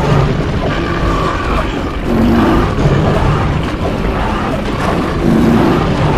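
Cartoon stampede sound effect: a loud, continuous low rumble of many animals running.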